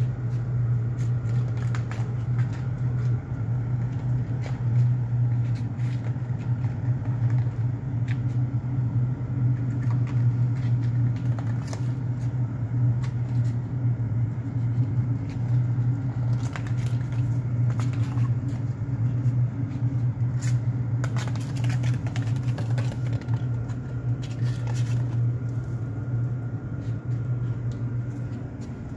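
A crumpled foil ball being batted by kittens, crinkling and skittering across a tiled floor in scattered light clicks and rustles, with a denser burst of crinkling about three quarters of the way through. A steady low machine hum lies under it all.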